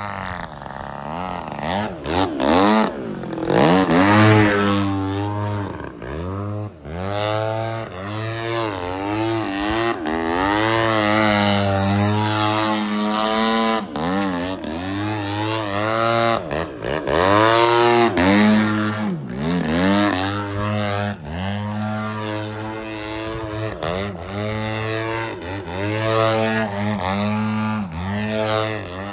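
RC aerobatic airplane's engine running in flight. Its pitch rises and falls repeatedly as the plane throttles up and down and passes back and forth.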